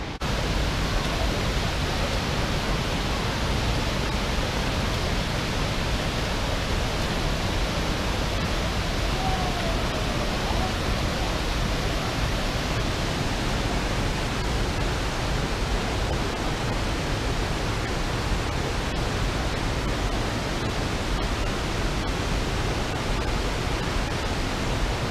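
Steady rushing of water: a creek and waterfalls running through a narrow stone gorge, an even, unbroken wash of sound.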